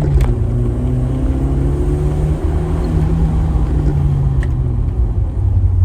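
Car engine running under load while the car is driven, its note rising and falling gently as the speed changes.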